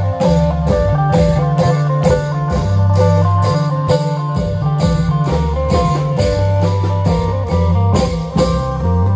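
Isan klong yao band playing: long drums strike a steady beat while a plucked-string melody runs over a held bass line.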